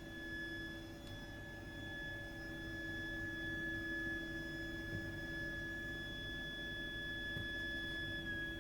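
Continuous shrill high-pitched whistle from a heat interface unit and its heating pipework, a steady single tone that holds without a break and dips slightly in pitch near the end. It is an abnormal plumbing noise that sounds even when no hot water or heating is being used.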